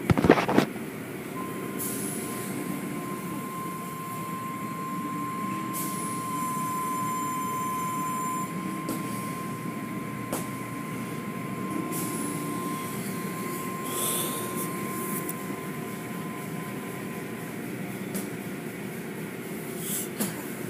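Automatic tunnel car wash running: cloth brushes and curtains working over cars amid spraying water and machinery noise. A steady high-pitched whine runs from about a second in until a few seconds before the end, and there is a sharp knock right at the start.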